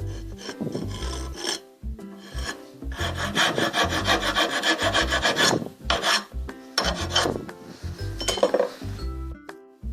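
Rasping, back-and-forth abrasion of a brake part by hand, the kind of scuffing done on squealing brakes. It is loudest in a long run of strokes in the middle and a shorter burst later, over background music with a steady beat.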